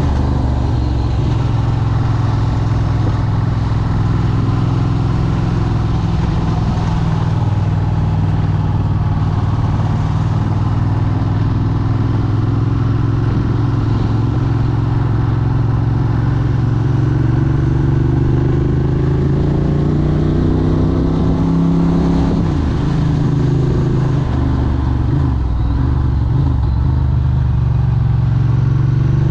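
Moped engine running steadily under way, its pitch dipping and wavering about two-thirds of the way through, then rising again near the end as the revs pick up.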